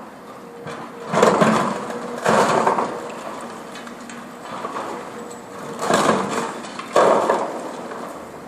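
Concrete demolition: four crunching crashes of broken concrete, in two pairs about a second apart, over the faint steady hum of an engine.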